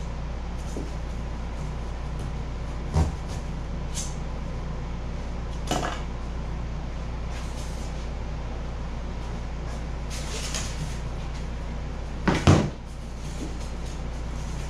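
A few sharp knocks and clatters of hand tools being picked up and set down on a plywood workbench, the loudest a double knock near the end, over a steady low hum.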